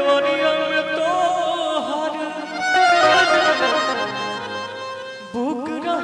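A live band plays an instrumental Bhojpuri stage-show passage: a reedy, accordion-like lead melody with sliding notes over low bass notes. The music dips briefly just past five seconds, then a rising run of notes comes in.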